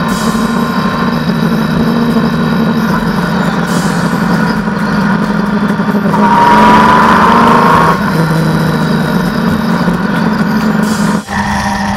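Motorcycle engine running steadily at highway cruising speed, with wind and road noise. It swells louder with a rising whine for a couple of seconds in the middle, and the sound briefly drops out near the end.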